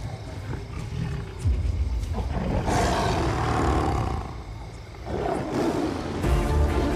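A tiger roaring, a long loud roar from about two seconds in followed by a shorter one, played as a sound effect on a film trailer's soundtrack. Music comes in near the end.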